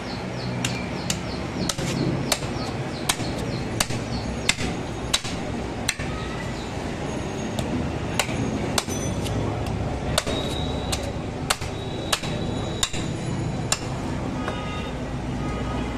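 A butcher's long heavy knife chopping a skinned goat head on a wooden stump block: sharp, irregular blows about one or two a second, stopping near the end.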